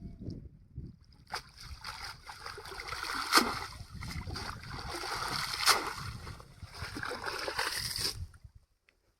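Water splashing and sloshing, with a few sharper, louder splashes. It cuts off suddenly near the end.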